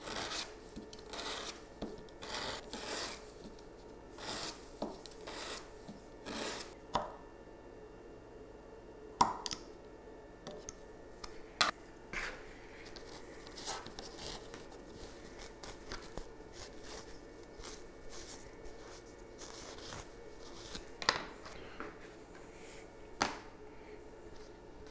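Sandpaper rubbed by hand along the edge of a 3D-printed plastic earpad bracket, in a run of short rasping strokes over the first several seconds. After that come a few scattered light clicks and knocks as the plastic parts are handled on the table.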